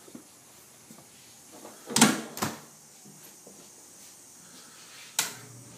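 A few sharp knocks or bumps, like a door or cabinet being handled: two close together about two seconds in and one more near the end.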